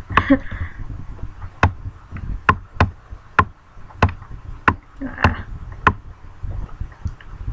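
Sharp, separate computer clicks, about a dozen, irregularly spaced half a second to a second apart.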